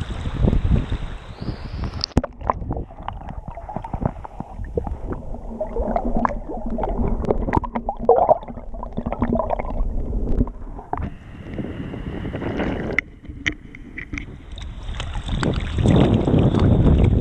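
Sea water sloshing and splashing against a floating waterproof camera at the waterline, with wind on the microphone. In the middle the sound turns muffled and gurgling while the camera dips underwater, then opens up into louder splashing again near the end.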